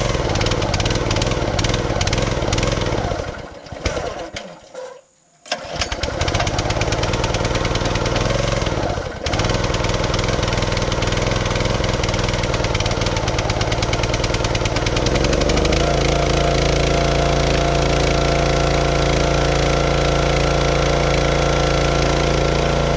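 Small gas engine of a hydraulic log splitter starting: it runs, sputters out about four seconds in, catches again and keeps running, settling into a steady run in the second half. It starts once the stuck detent valve has been worked to release the hydraulic pressure that had kept it from turning over.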